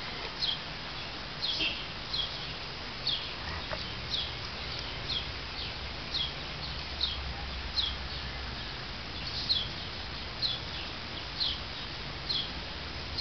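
Puppies squeaking: short, high-pitched calls that fall in pitch, repeating about once or twice a second.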